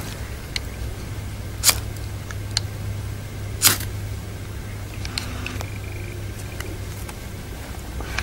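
Knife spine struck sharply down a firesteel (ferrocerium rod) a few times, about two seconds apart, with fainter scrapes between, throwing sparks onto damp straw tinder to light a fire.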